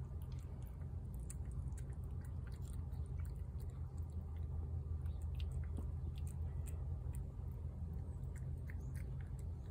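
A tabby cat chewing wet chicken, with many small, irregular clicks and smacks over a steady low background rumble.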